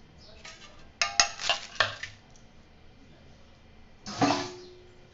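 Metal kitchenware clattering: a quick run of sharp clinks about a second in, then a louder clatter about four seconds in as a charred leaf-wrapped fish parcel is set down on a steel plate, which rings briefly.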